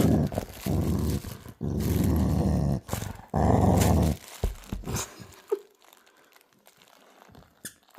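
Dog growling in three long low stretches over the first four seconds, then going much quieter.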